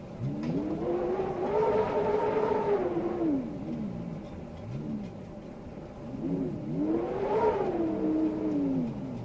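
Wind howling in long, pitched gusts that rise and fall: two long swells of about three seconds each with a short one between them, over a steady hiss.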